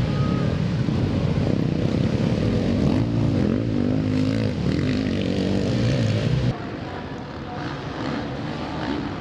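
Several motocross bikes racing, their engines revving up and down as the riders come down a dirt slope. About six and a half seconds in the sound drops suddenly, and engines carry on quieter and more distant.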